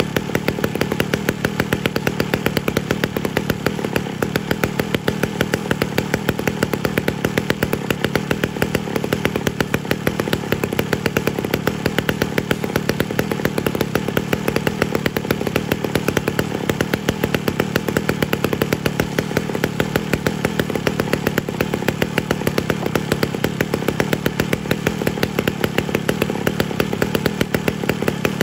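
Ported Homelite Super XL-925, an 82cc two-stroke chainsaw, idling steadily through its new muffler with an even, regular firing beat.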